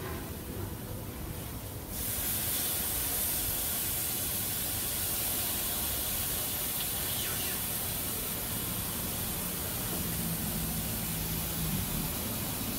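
Marinated pork tenderloin sizzling on a Weber electric grill's grate: a steady hiss that starts suddenly about two seconds in, with a few faint taps as tongs turn the pieces.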